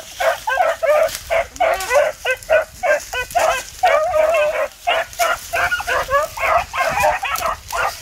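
Beagle hounds baying in quick, overlapping yelps, about three or four a second: the pack giving tongue as it runs a rabbit's scent trail.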